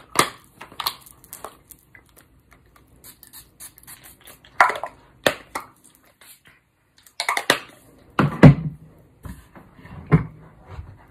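Scattered clicks and knocks of small hard objects being picked up and set down on a hard surface, with a few short brushing or rustling sounds in between.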